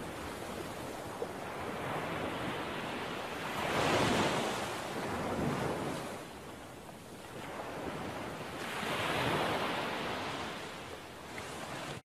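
Ocean surf: waves washing in, the rush swelling and fading about every five seconds, cut off suddenly at the end.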